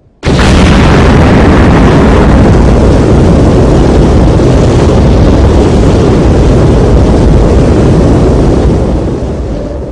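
Nuclear explosion sound effect: a sudden, very loud blast that carries on as a dense, steady rumble and begins to fade near the end.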